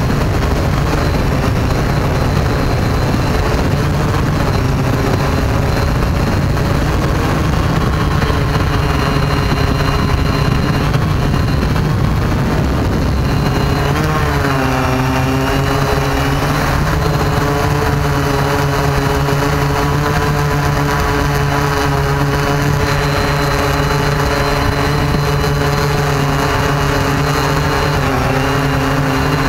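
Quadcopter drone's motors and propellers buzzing steadily, heard through the drone's own onboard camera microphone. The pitch dips and settles at a new speed about halfway through, then dips briefly again near the end.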